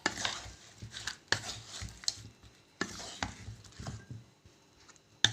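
Pieces of marinated fish being mixed by hand with chopped onion, tomato, mint and garlic-ginger paste in a bowl: irregular wet squelches, scrapes and knocks against the bowl, with a sharper knock near the end.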